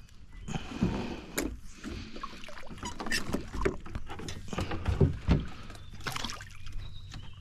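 Irregular knocks, clicks and bumps on an aluminium fishing boat as fishing line is handled over the side, with a couple of heavier low thumps about five seconds in.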